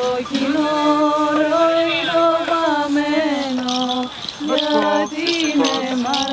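A voice singing a slow chant of long held notes that step and slide between a few pitches, with two short breaks for breath.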